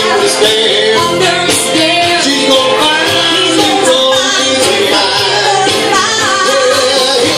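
Karaoke duet: a woman and a man singing into handheld microphones over a recorded backing track, amplified through the bar's sound system.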